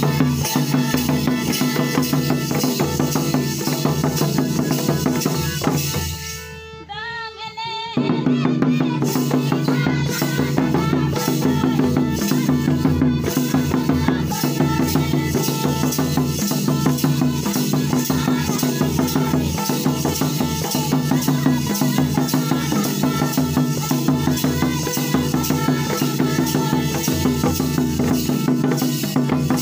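Folk dance music with fast drumming and a rattle over steady low notes. About six seconds in most of it drops away for a couple of seconds, leaving a wavering high tone, then the full drumming comes back.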